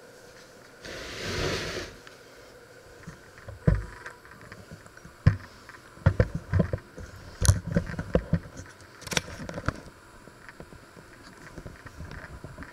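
Irregular knocks and thumps of kitchen handling, with a brief rushing hiss about a second in.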